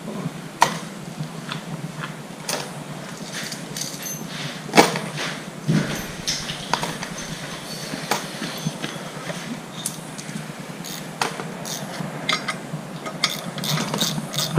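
Metal hand tools clinking, tapping and knocking against car parts: scattered sharp clanks, the loudest a knock about five seconds in.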